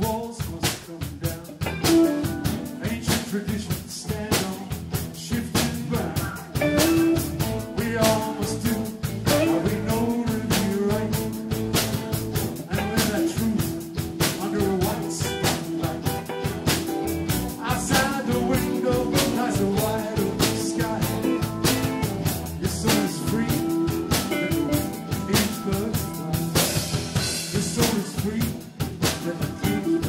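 Live blues band playing: an electric guitar line over a drum kit, with the drums keeping a busy, steady beat.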